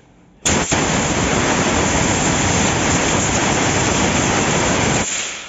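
A loud, steady hiss of a spray jet blasting onto the threaded end of a hydraulic cylinder rod to clean it. It starts abruptly about half a second in and stops about five seconds in.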